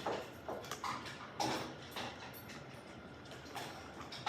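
A few scattered short clicks and taps from handling a paint bottle while lavender colour is added to the slime mixture.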